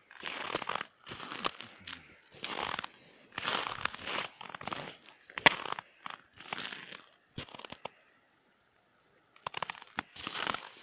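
Footsteps crunching through snow on ice, about one step a second, pausing briefly near the end before starting again.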